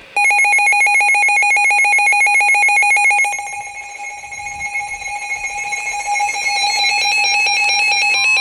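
Weather radio alert alarm sounding, a fast, regular warbling electronic beep that dips in level for a few seconds partway through. Near the end, the steady NOAA Weather Radio warning tone starts under it, signalling a warning alert.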